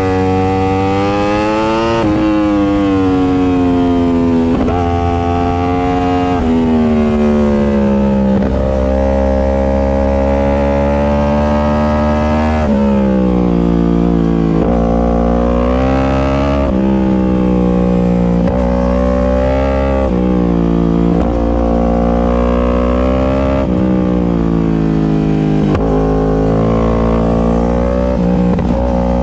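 Superbike engine and exhaust at speed, revving hard. The engine note climbs and then drops sharply over and over, as at gear changes and throttle lifts.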